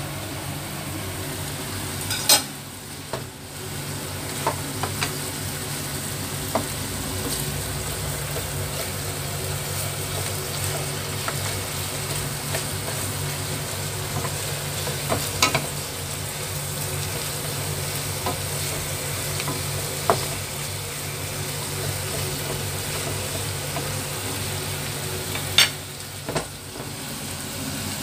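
Marinated pork spareribs sizzling as they fry in their sauce in a pan, stirred with a wooden spatula. A few light knocks of the spatula against the pan, the two sharpest about two seconds in and near the end.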